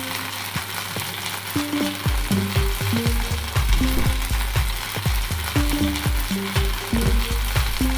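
Fish pieces shallow-frying in oil in a pan, with a steady sizzle. Background music plays over it, with a pulsing bass beat that comes in about two seconds in.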